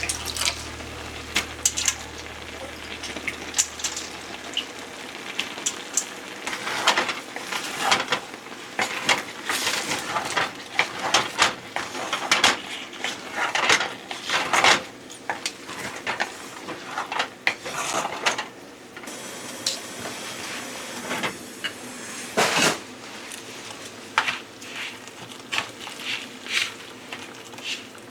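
Kitchen clatter: dishes, containers and utensils knocked and set down in many short, irregular clinks and clicks. Background music fades out in the first few seconds.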